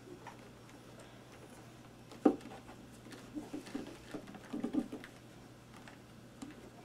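Scattered light knocks and small rattles as a wooden dowel is handled and shifted against a small guitar amp's case, with one sharper knock about two seconds in.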